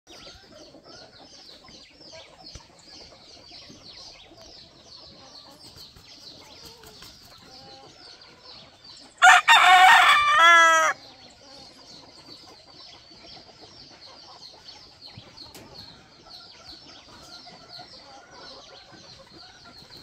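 A gamecock rooster crows once, a loud call of nearly two seconds about halfway through that falls in pitch at the end. A rapid, high, repeating chirping goes on quietly behind it.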